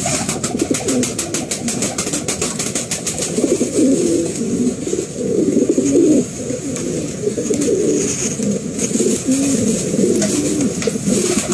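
Pomeranian Pouter pigeons cooing, with repeated low, rolling coos overlapping one another.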